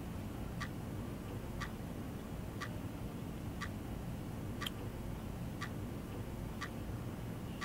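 A clock ticking steadily, one tick a second, over a low steady room hum.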